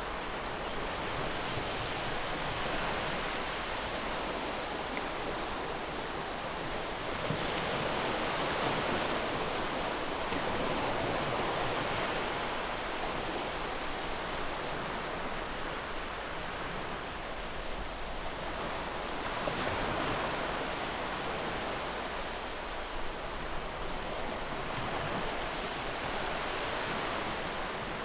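Ocean surf: a continuous rush of waves washing on a shore, slowly swelling and easing every several seconds.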